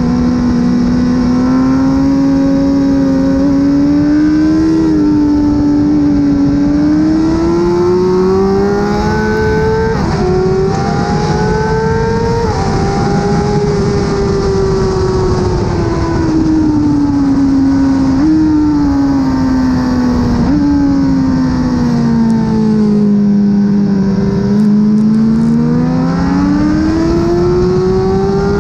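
2017 BMW S1000RR inline-four with an Akrapovic exhaust at track speed. Its revs climb and fall, with sudden steps in pitch at the gear changes, over steady wind noise.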